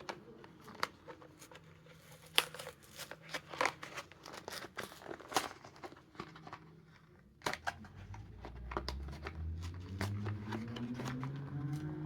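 Plastic blister pack and cardboard card of a Hot Wheels die-cast car being pried and torn open by hand: irregular crackling, clicking and crinkling. Over the last few seconds a low hum comes in and slowly rises in pitch.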